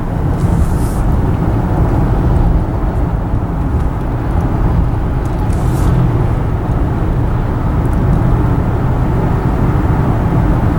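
Steady low road and engine rumble of a car driving along a road, heard from inside the moving car. Two short faint hisses come through, about half a second in and a little past the middle.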